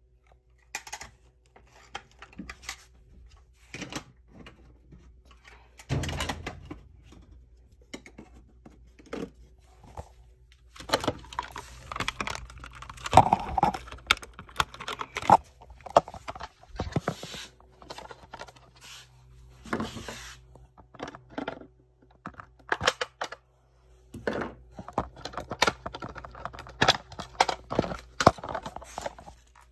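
Smoke alarms being handled as their batteries are taken out: irregular clicks, taps and knocks, busiest about halfway through and again near the end.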